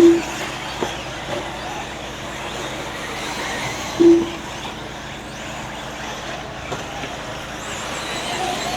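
Electric RC buggies racing on a dirt track, a steady noise, with two short, low electronic beeps, one at the start and one about four seconds in, as from the lap-timing system when a car crosses the line. A few faint ticks come about a second in and near the end.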